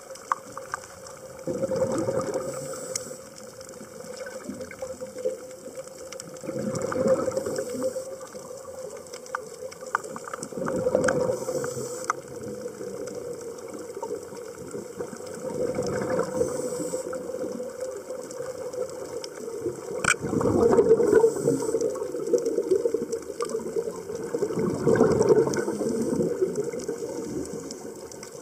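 Underwater recording of a scuba diver breathing through a regulator: six bubbling exhalation bursts, about one every four to five seconds, with quieter gaps between for the inhalations.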